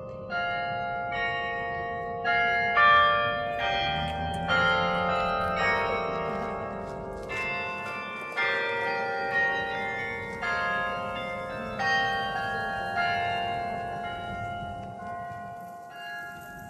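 The bells of the Berlin Tiergarten Carillon played by hand: a slow melody of single struck bell notes, about one a second, each ringing on and overlapping the next.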